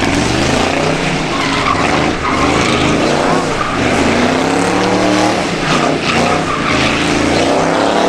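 Chevrolet Camaro's engine revving hard up and down during a burnout, its rear tyres spinning and squealing on the asphalt.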